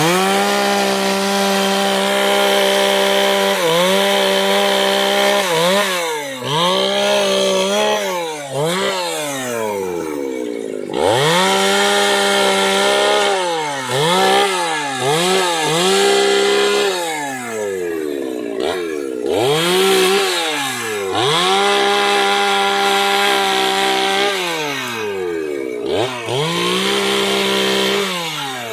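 Two-stroke chainsaw running at full throttle while cutting dry hard teak. Its high engine note is held for a few seconds at a time, then drops sharply and climbs back as the throttle is let off and opened again, about a dozen times.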